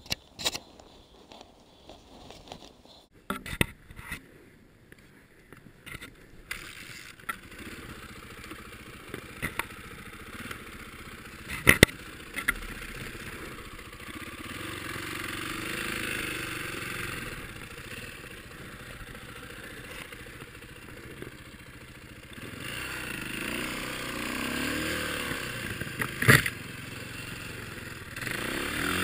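Knocks and scrapes as a snow bike is handled in deep snow, then its single-cylinder four-stroke dirt-bike engine runs from about a quarter of the way in. It gets louder near the end, with the pitch rising and falling as the bike pulls away, and a couple of sharp knocks come through over it.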